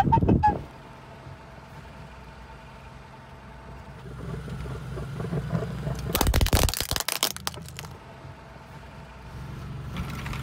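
A red plastic toy whistle gives a few short notes, then a car's engine runs low as the car rolls forward, and its tyre crushes the whistle with a crackling crunch about six seconds in that lasts just over a second.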